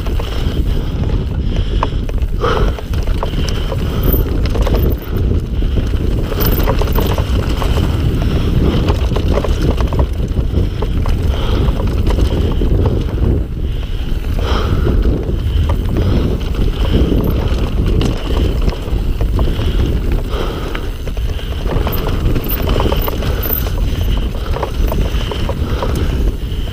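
Mountain bike descending a rough trail at speed: a dense rumble of wind buffeting the mic and tyres running over the ground, broken by frequent rattles and knocks from the bike.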